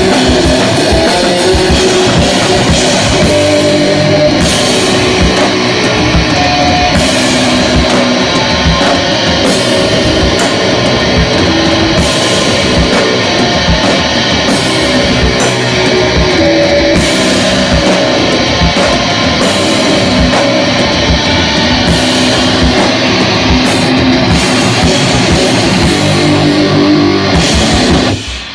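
Live rock band playing loudly, an electric guitar over a drum kit, with no singing. The music stops suddenly near the end.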